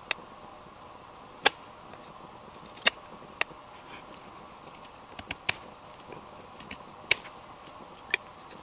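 Knife carving a wooden spatula blank: each cut bites into the wood with a sharp click, coming at irregular intervals about a second apart, with a quick run of three about halfway through.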